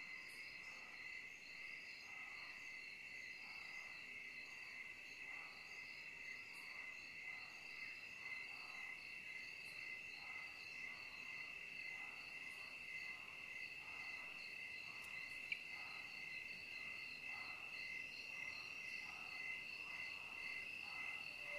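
Evening insect chorus: a steady, high cricket trill with a second insect chirping in quick pulses above it, about three a second, and fainter, lower calls repeating irregularly underneath. A single brief click about three-quarters of the way through.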